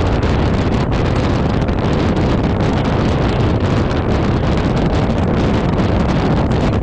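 Steady wind rushing over the microphone of a moving vehicle, with road noise beneath it.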